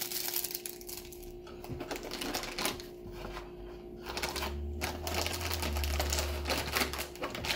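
Plastic packaging crinkling and rustling as it is handled: a clear plastic accessory bag, then the metallic anti-static bag around the card. A low rumble joins it in the second half.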